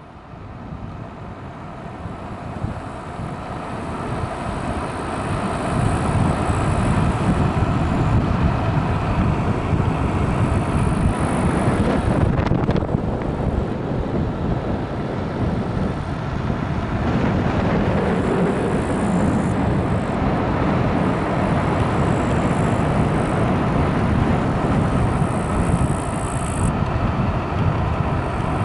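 Wind buffeting the microphone of an electric scooter riding along an asphalt road, mixed with road noise; it grows louder over the first five or six seconds, then holds steady.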